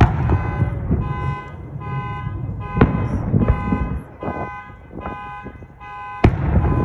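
Aerial fireworks shells bursting overhead: a loud bang right at the start, a sharp one about three seconds in and another a little before the end, with rumbling booms between. Over them an electronic alarm's steady tone sounds on and off.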